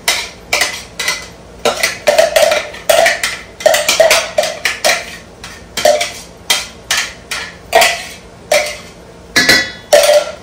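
Repeated sharp knocks with a short ringing tone, about two a second, of a hand tapping and shaking a small plastic container to get fine seasoning out of it.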